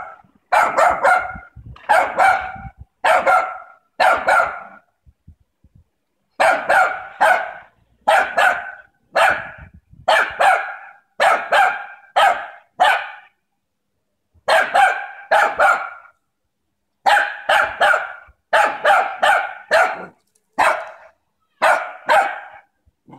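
Small dog barking repeatedly at a cat, in quick runs of two or three barks, with a couple of pauses of about a second.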